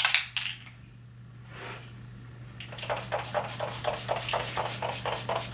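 MAC Fix+ setting spray misted from its pump bottle onto a face: a short soft hiss about a second and a half in, then a run of quick soft ticks, about five a second.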